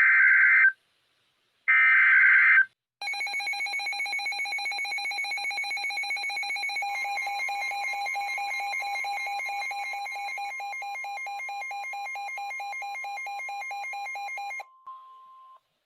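Emergency Alert System signal on NOAA Weather Radio, announcing a new warning. It opens with two short screeching SAME data bursts, then the weather radio's alarm beeps rapidly for about twelve seconds. A steady warning alarm tone joins partway through and holds alone for a moment after the beeping stops.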